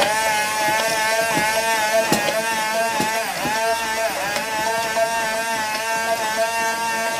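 Hand-held immersion blender running at full power in a tall glass jug, puréeing piquillo pepper with vinegar and olive oil into a thick emulsion. A steady motor whine that dips briefly in pitch twice near the middle.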